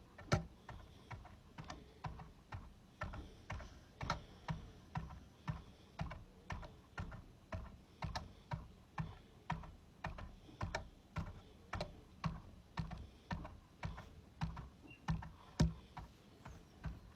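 Ball being handled for ASMR, giving a steady run of short, sharp clicks, about two or three a second, with a louder one near the start and another near the end.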